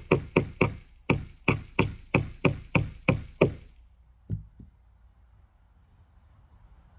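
Claw hammer nailing down the top of a dog platform: about a dozen sharp, even strikes, roughly three a second, that stop about three and a half seconds in, then one lighter strike a moment later.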